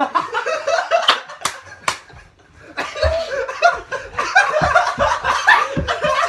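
Several men laughing hard in choppy bursts, with a lull about two seconds in and a few sharp smacks or claps among the laughter.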